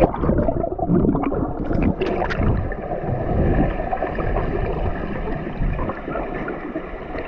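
Muffled underwater water noise as a swimmer goes under in a spring: a splash right at the start, bubbles crackling and gurgling for the first couple of seconds, then a steady dull rush of water.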